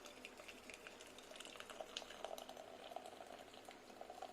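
Hot herbal decoction being poured through a strainer into a steel vessel: a faint trickle and patter of liquid with small scattered drips.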